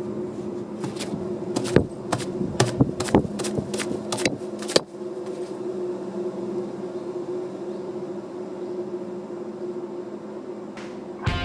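Steady droning hum with two held tones from a Nissan Moco's failing rear hub bearing, a sound like riding in a train carriage. A run of sharp clicks and knocks sounds in the first five seconds.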